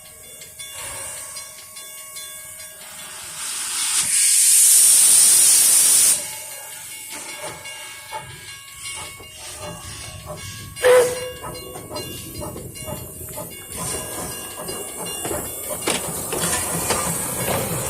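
Puffing Billy steam locomotive letting off steam: a loud hiss for about three seconds, then a single sharp metallic clang with a brief ring about eleven seconds in, and rumbling noise that grows a little toward the end.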